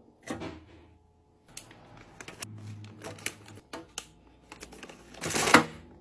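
Crinkling snack-bag packaging and light taps on a clear plastic bin as chip bags and cracker sleeves are packed into it. A run of small clicks and rustles, with the loudest crinkle near the end.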